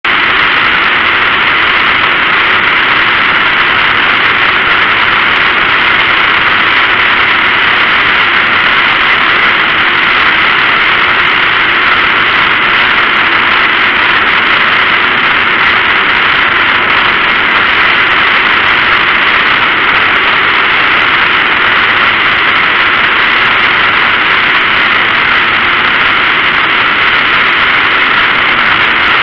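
Steady, loud roar of a dirt-track race car at speed, heard from a camera mounted on the car: engine noise and rushing air blended into one even roar, with no clear rise and fall of revs.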